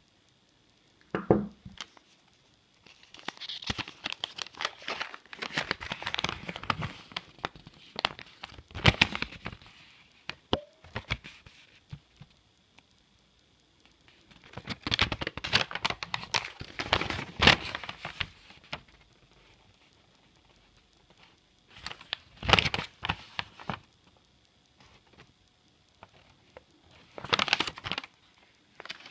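A folded paper instruction sheet being unfolded and handled, crinkling and rustling in several separate bursts with quiet gaps between.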